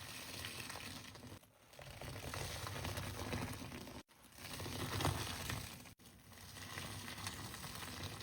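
Hands squeezing and kneading a paste-filled squishy toy, making a continuous crinkly, crackling squish that breaks off abruptly at a few edit cuts.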